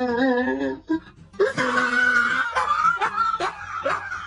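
Bengal cat yowling: a long wavering meow, a stronger drawn-out call, then a run of short rising calls about two a second.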